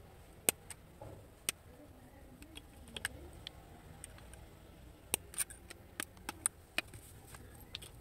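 Sharp, separate clicks and snaps of steel pliers working copper wire ends that stick out of a plastic TV remote's casing, with light plastic handling knocks; the clicks come in a quick cluster about five to seven seconds in.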